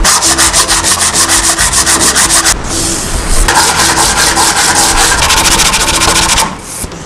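Hand sanding of a wooden board with a sandpaper block: fast back-and-forth rubbing strokes. The strokes falter briefly about two and a half seconds in, then go on and stop shortly before the end.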